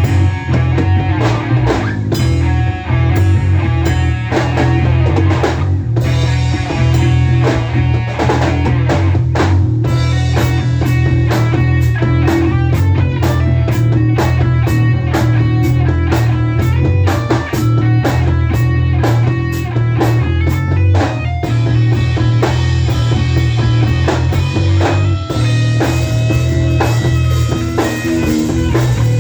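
Rock band playing an instrumental passage: guitar over a steadily beating drum kit, with no singing.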